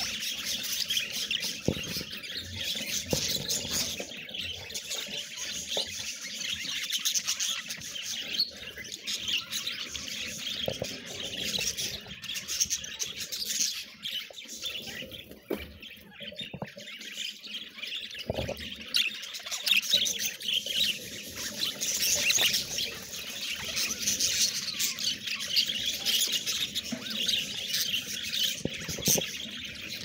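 A flock of budgerigars chattering all at once, a continuous mass of warbling chirps with squawks mixed in, easing off briefly about halfway through.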